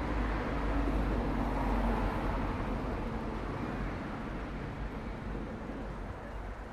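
Low rumble of a passing vehicle, fading gradually away.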